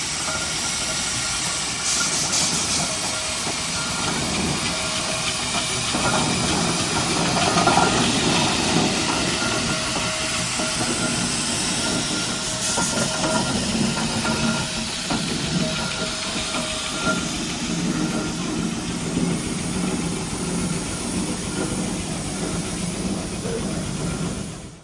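Steady, loud hissing with a mechanical rumble underneath and a few faint steady tones, cutting off abruptly at the end.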